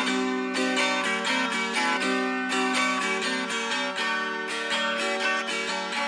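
Gusli played without singing: quick plucked and strummed notes ringing over a held low note.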